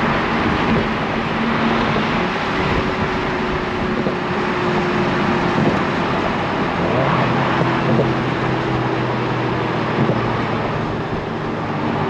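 BMW Z4 sDrive30i's turbocharged four-cylinder engine running steadily on the road, over a constant hiss of tyre and wind noise. The engine note changes about two seconds in and settles lower from about seven seconds in.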